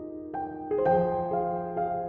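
Slow background piano music: single notes struck about every half second and left ringing over one another.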